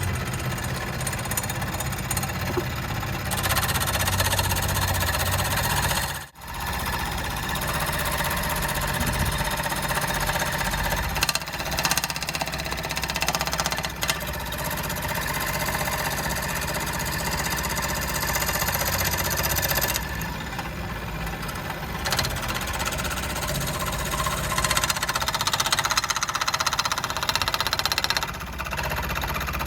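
Vintage Dunlap 13-inch bench-top jig saw running, its blade driven rapidly up and down with a steady motor hum and fast mechanical chatter. The run is smooth, with the blade clamped so it no longer strikes the frame. The sound cuts out for a moment about six seconds in, then carries on.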